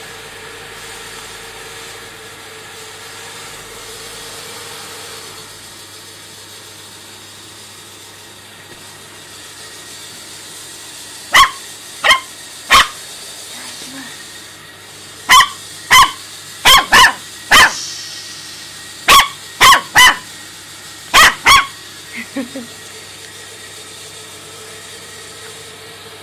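Puppy barking in short, sharp, high barks: about a dozen of them in clusters of two or three, starting about eleven seconds in, over a faint steady hum.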